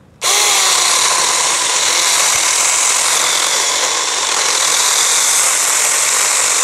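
Cordless 36 V mini chainsaw starting up and cutting steadily into a live tree trunk, its pitch dipping briefly just after it starts.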